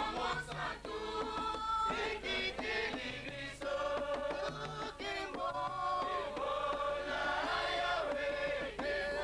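A group of voices singing together in chorus, with drum beats.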